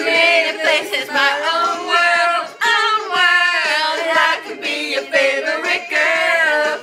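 A group of young people singing loudly together, holding high, wavering notes.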